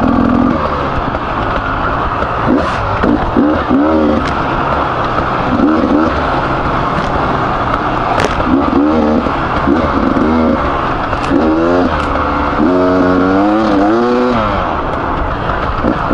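Beta 300RR two-stroke enduro motorcycle engine revving up and down again and again as it is ridden along a trail, over steady wind noise, with a few sharp clicks.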